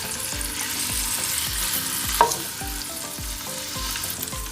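Marinated quail shallow-frying in a little oil in a pan: a steady sizzle, with one sharp tap about halfway through.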